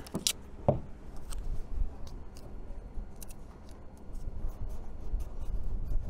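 Scattered light clicks and scrapes of hands working with masking tape and a marker on a plastic boat console panel, over a steady low rumble.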